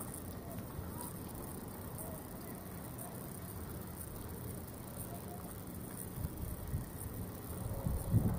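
Outdoor ambience: a steady low rumble with a faint hiss, and a few louder low thumps near the end.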